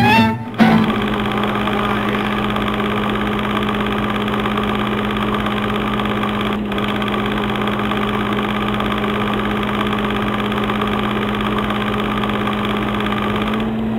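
A string music phrase cuts off about half a second in. It gives way to the steady mechanical whirr of an old film projector running, with a constant low hum under it.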